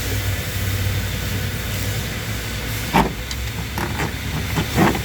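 A vehicle engine running steadily with a low hum, with two sharp knocks, one about three seconds in and one just before the end, and a few fainter taps between them.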